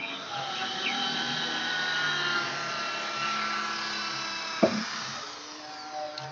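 Large wooden speaker cabinet scraping along the ground as it is pushed, a steady rasp with one sharp knock about four and a half seconds in.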